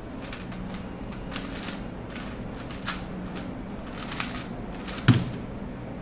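Moyu Weilong WR M 2021 magnetic 3x3 speedcube being turned rapidly in a speedsolve, a quick run of plastic clicks and clacks. About five seconds in comes one loud knock as the solved cube is set down on the timer mat.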